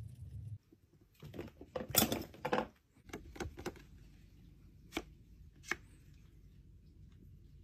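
Palette knife scraping and smearing thick paint across a palette in a quick run of scrapes and clicks, followed by two sharp taps close together.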